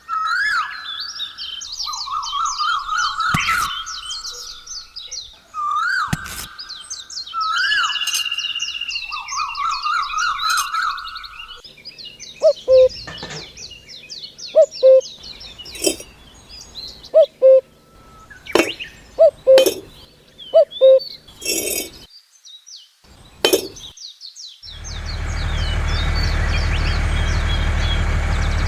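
Birds calling: a short warbled phrase repeated every couple of seconds over higher chirps. About halfway through come scattered light clinks and taps, and near the end a steady low engine-like drone starts.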